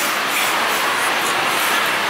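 Steady rushing noise of road traffic passing a roadside street stall.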